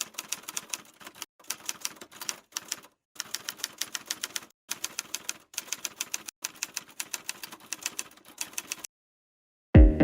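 Typewriter keys clacking in quick runs of about a second each, with short pauses between, stopping about nine seconds in. Electronic dance music with a beat starts near the end.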